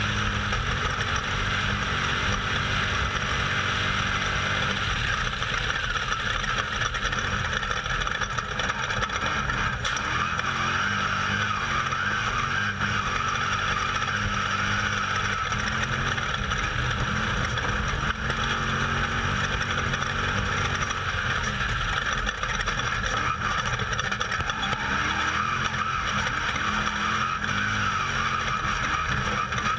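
Off-road race vehicle driving at speed, heard from on board: its engine runs steadily under a constant rush of noise.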